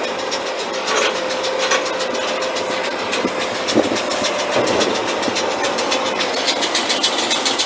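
Tractor engine running steadily while it drives a hay baler, with a steady whine in the first few seconds and a fast ticking rattle building near the end.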